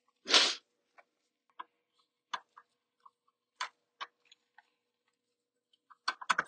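Scattered small clicks and ticks of hands and tools working wiring in an electrical junction box, fitting a ground wire to the ground bus. A short rustle comes about half a second in, and a quick cluster of clicks near the end, over a faint steady hum.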